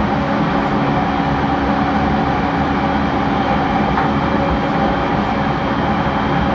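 Steady hum and whir of an E231-series electric commuter train standing still, with a few steady tones running through it and a single click about four seconds in.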